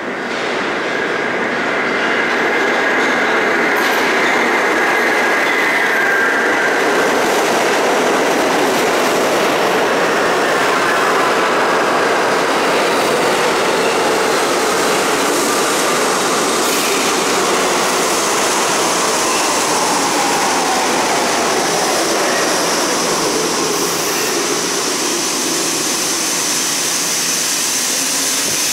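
R68 subway train pulling into the station and braking to a stop. A loud rumble of wheels on rail builds over the first two seconds, whines fall steadily in pitch as it slows, and a high squeal rises near the end.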